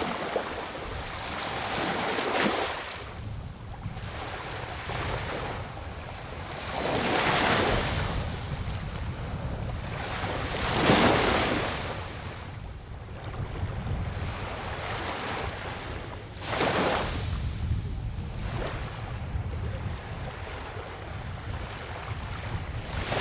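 Small waves washing up onto a sandy beach, four times, each swelling and fading, the third the loudest. Wind rumbles on the microphone underneath.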